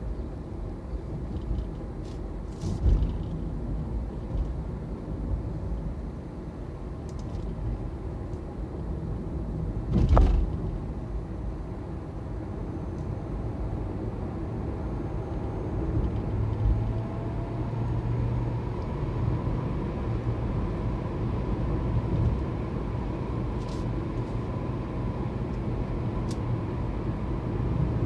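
In-cabin road and tyre noise of a Hyundai Ioniq Electric driving, with no engine sound: a steady low rumble that grows a little louder as the car speeds up in the second half. Two sharp thumps stand out, about 3 s and 10 s in.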